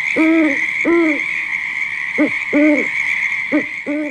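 Owl-like hooting: about seven short calls, each rising and falling in pitch, over a steady high-pitched drone.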